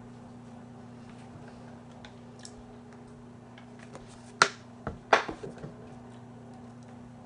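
A glass bottle being handled and set down: one loud knock about four and a half seconds in, then a quick cluster of smaller knocks and taps, over a steady low hum.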